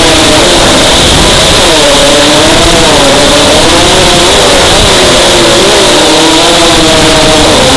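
FPV racing quadcopter's brushless motors and propellers whining under changing throttle, their pitch constantly rising and falling over a loud rushing hiss.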